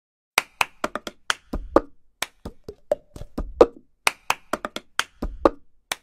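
Percussive intro jingle: a quick, uneven rhythm of sharp claps and clicks, some with a short ring, over a low thump about every two seconds. It starts about half a second in.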